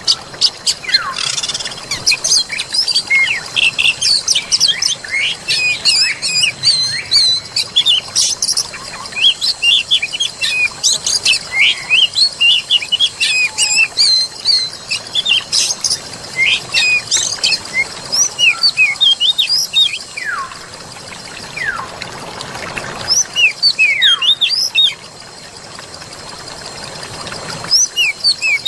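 Forest ambience: many small songbirds chirping and singing in quick, rapid notes and short falling whistles over a soft wash of flowing water. A faint steady high tone runs underneath, and the background drops suddenly about 25 seconds in.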